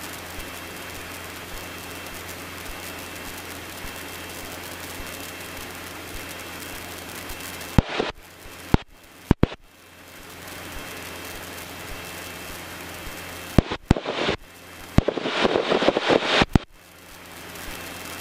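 Cessna 150 in flight heard from the cockpit: a steady drone of engine and airflow with a faint hum, broken several times by sharp clicks, crackling and brief cutouts in the audio, loudest in a crackling burst about 15 to 16.5 seconds in.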